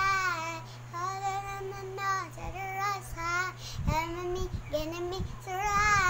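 A young girl singing alone, in short phrases of held notes that waver and bend in pitch, with brief breaths between them.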